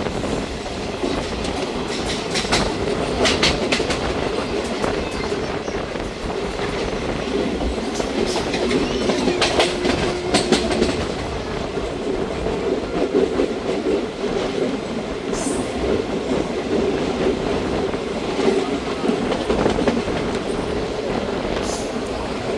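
Train running along the track: a steady rolling rumble with the wheels clicking irregularly over rail joints, and a faint brief whine about ten seconds in.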